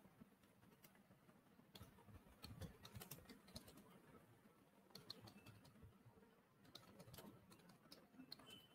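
Faint typing on a computer keyboard, the keystrokes coming in short irregular runs.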